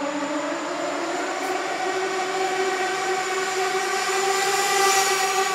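Kyosho Fazer FXX RC car's small nitro engine and its aftermarket exhaust, revving up in pitch over the first couple of seconds and then holding a high, steady scream at speed, growing louder near the end.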